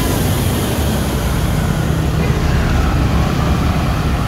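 Large diesel bus engine running close by, a low steady rumble that grows a little louder about two seconds in as the bus moves off.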